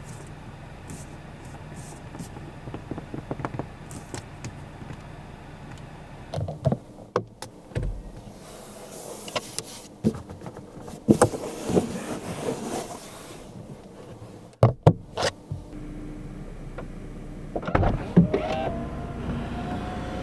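Clicks and taps on the cabin trim of a Genesis G90, then the electric motor of a power-operated fitting running steadily for the last few seconds.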